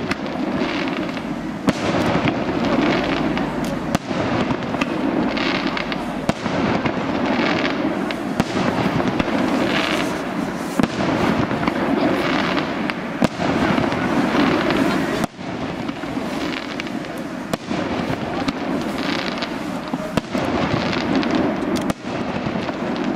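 Fireworks going off in a continuous dense crackle, with many sharp pops and cracks throughout.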